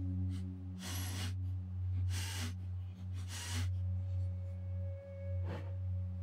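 Background ambient music with a low, steady drone and held notes. Over it come four short hissing rasps, about a second apart at first, with the last one about five and a half seconds in: handling noise from hands working the toolhead wiring.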